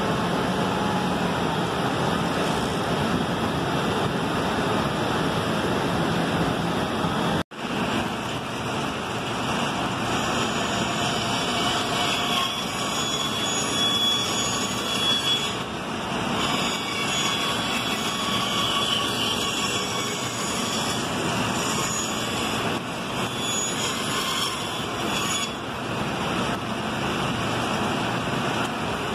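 Woodworking machines running steadily: a spindle shaper for the first several seconds, then, after a brief break, a band saw cutting a walnut board along a curved line, with a thin high whine coming and going during the cut.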